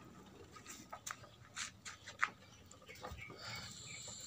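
Old rusty rice thresher's spiked drum spinning on its chain drive, with faint, irregular ticks and light scrapes from the turning mechanism.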